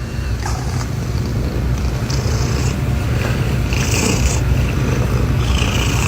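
A steady, loud low rumble, with patches of higher hiss coming and going over it.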